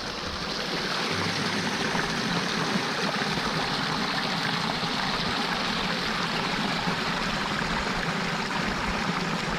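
A creek's flowing water rushing and babbling steadily, close by.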